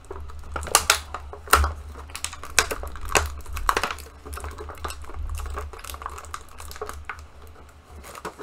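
Clear plastic blister packaging and accessory bags crinkling and crackling as they are handled, in irregular sharp crackles that are busiest in the first half, over a low steady hum.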